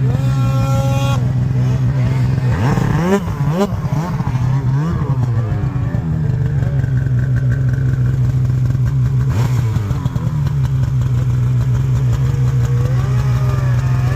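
Snowmobile engines running with a steady idle hum, revved up and down in quick sweeps just after the start, again from about three to five seconds in, and near the end.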